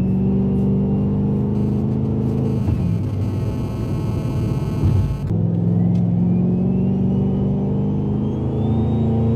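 Turbocharged Ford Mustang GT 5.0 V8 running hard at high speed. About three seconds in, the engine note drops away for a couple of seconds, leaving a rushing noise. It then comes back and climbs steadily, with a thin high whine rising along with it.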